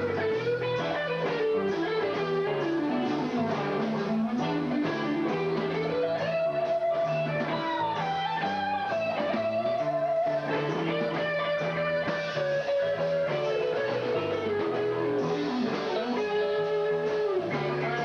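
Live rock band playing an instrumental jam. An electric guitar plays a lead line that slides and bends between notes, over bass and drums.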